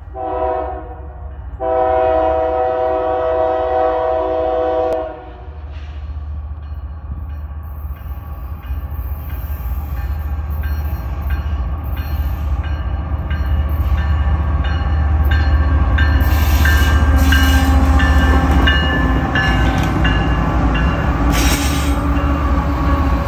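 Union Pacific diesel freight locomotive's horn sounds a short blast and then a long one of about three seconds. The locomotives' deep engine rumble then builds as the stack train approaches and passes, with wheels clattering over the rails.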